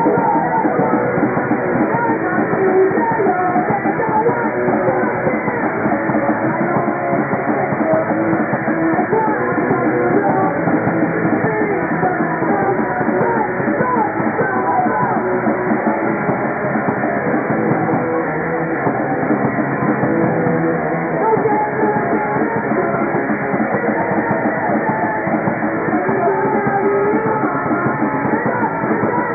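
Live rock band playing loud: electric guitars and a drum kit driving on without a break.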